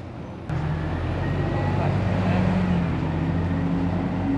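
A motorcycle engine idling steadily. It comes in suddenly about half a second in and stays loud.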